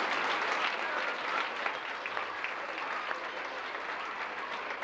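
Audience of schoolchildren applauding, a dense patter of many hands clapping that slowly dies down.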